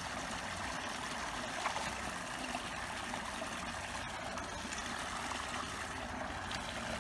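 Steady sound of running water, a small stream trickling and flowing.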